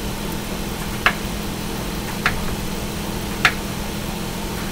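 A plastic cooking spoon knocks three times against the pan while stirring eggs, three sharp clicks about a second apart over a steady low hum.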